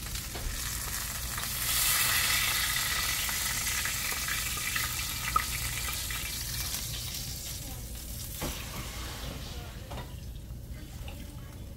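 Vegetables frying in a skillet on a gas stove, sizzling steadily. The sizzle swells about two seconds in and then slowly dies down, with a couple of light knocks from the utensils.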